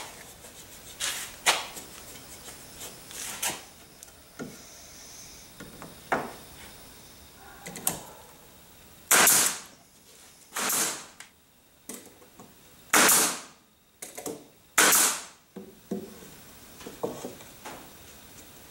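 Wooden trim pieces set and slid into place on a glued plywood door panel, with one-handed bar clamps slid on and ratcheted tight. A few sharp knocks come first, then four louder scraping sounds of half a second to a second each.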